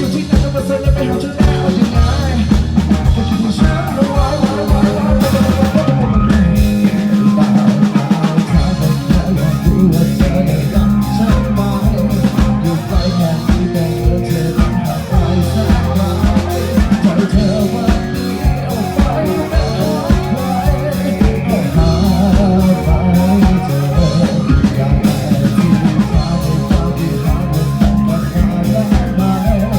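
Live band playing a pop-rock song: a drum kit keeps a steady beat over a strong bass line, with singing.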